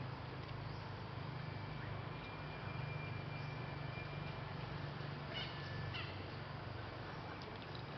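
Two short animal calls about half a second apart, over a steady low hum and outdoor noise.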